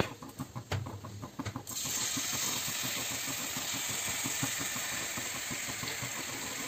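Chopped garlic dropped into hot vegetable oil with cumin seeds in a kadai, frying: a few light clicks, then a steady sizzle that starts suddenly a little under two seconds in.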